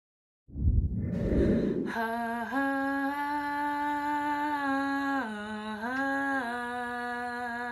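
A short burst of low rumbling noise about half a second in. Then a young woman's voice sings a slow wordless tune in long held notes, stepping up, dipping down briefly and settling again.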